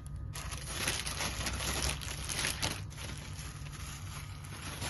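Rustling and crinkling of sarees and their wrapping being handled, loudest in a stretch of about two and a half seconds near the start, over a steady low hum.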